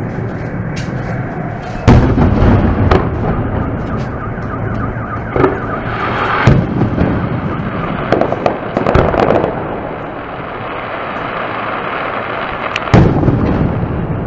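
Aerial fireworks shells bursting: three loud booms, about two seconds in, near the middle and near the end, with smaller pops and crackling between and a rumbling echo after each.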